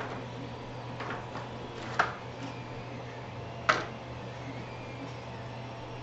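Small parts and tools being handled on a workbench: two sharp clicks, about two and about three and a half seconds in, and a few fainter ticks, over a steady low hum.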